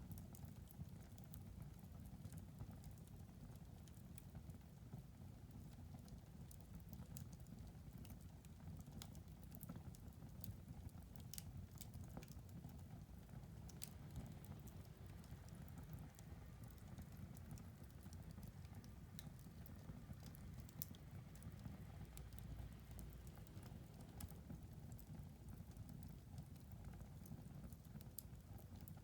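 Wood fire crackling faintly: irregular sharp snaps and pops over a low steady rumble.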